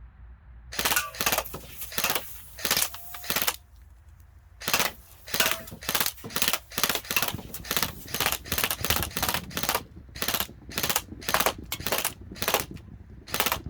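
ASG Scorpion EVO airsoft electric gun firing on semi-automatic. A few quick shots come first, then a short pause, then a fast, steady string of single shots at about two to three a second.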